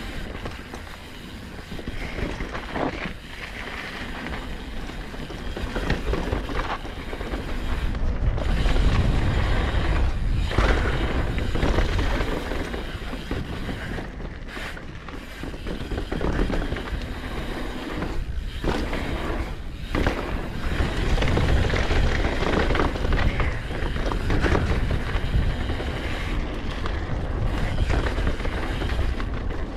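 Mountain bike tyres rolling over a dirt and rock trail, with knocks from bumps and wind rumbling on the microphone. It grows louder in stretches as the bike gathers speed.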